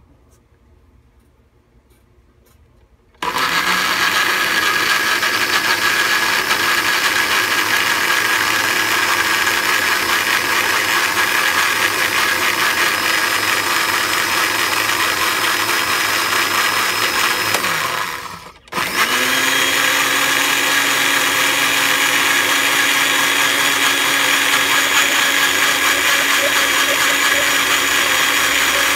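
Tough Mama electric countertop blender is switched on about three seconds in and runs steadily, puréeing cooked vegetables. About two-thirds of the way through it winds down, stops for a moment, and starts again, then runs on steadily.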